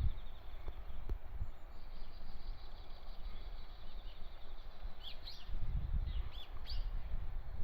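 Outdoor ambience: a few short bird chirps in the second half over an uneven low rumble, with a fine high trill near the start.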